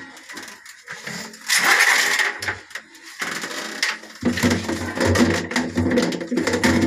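Handling noise of a plastic flush tank being fitted against a tiled wall: scattered knocks and clicks, with a short scraping rustle about one and a half seconds in. From about four seconds in a steady low hum with several tones joins it.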